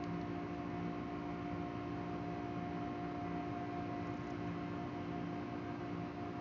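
Chrysler Pacifica 3.5L V6 engine running steadily, a constant hum with a few steady tones over a fast low flutter. The engine is being checked for a knock, which the owner puts down to a bad engine.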